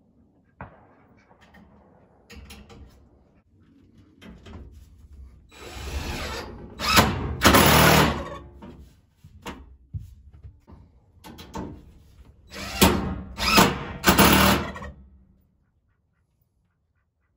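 Cordless drill driving screws through corrugated metal roofing into a wooden frame, in two runs of about three short bursts each, a few seconds apart. A few light knocks come before the first run.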